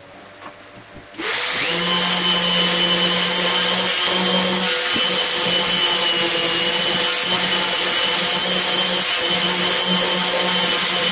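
Electric random orbital sander starting up about a second in and running steadily, a loud whirring hiss with a high, steady whine.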